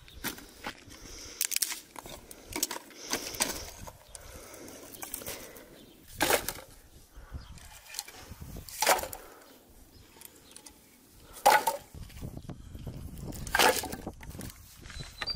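Firewood logs set down one by one onto a stacked pile, wood knocking on wood in sharp clunks, four loud ones in the second half. Lighter knocks and rustling of dry twigs fall between them.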